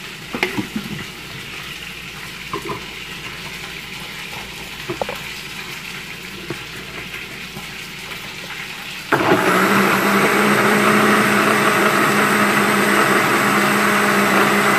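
A steady background sizzle of food frying, with a few short knocks as the blender jar is handled. About nine seconds in, a countertop blender's motor starts suddenly and runs steadily with a loud, even hum, puréeing onion, tomato, garlic, broth and cream into a sauce.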